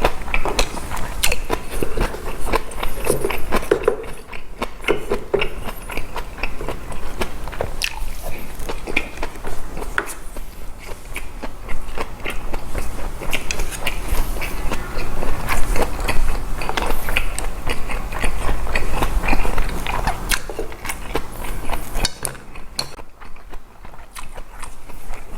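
Close-miked chewing and mouth sounds: a dense, irregular run of wet clicks and bites from someone eating boiled pork bossam with fresh kimchi and rice.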